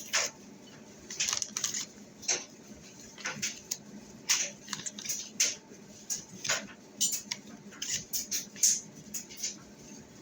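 Raw meatballs being set one by one into a pan, with scattered soft taps and light clinks at uneven intervals.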